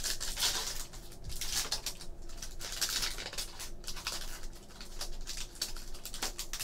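Foil wrapper of a basketball trading-card pack being torn open and crinkled by hand: a continuous crackle of sharp ticks and rustles.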